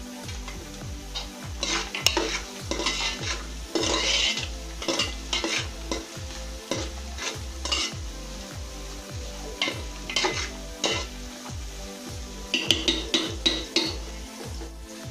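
A steel spoon stirring vegetables frying in an aluminium pot over a high gas flame: repeated bursts of scraping against the pot over a steady sizzle, in a long run from about two seconds in and again in shorter runs near the middle and near the end.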